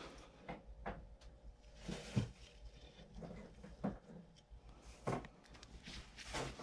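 Eight-strand fibre rope being worked by hand during an eye splice: faint rustling of the strands with a few soft knocks, scattered roughly once a second.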